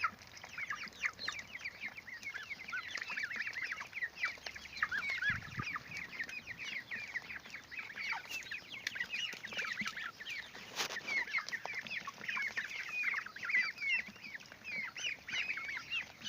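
A flock of three-week-old poultry, Cobb 500 broiler chicks with ducklings and goslings, peeping continuously: many short, high chirps overlapping, with a brief knock about eleven seconds in.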